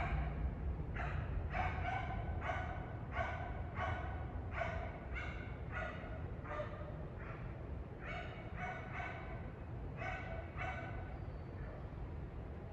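A dog barking repeatedly, short barks about once a second that stop near the end, over a steady low rumble.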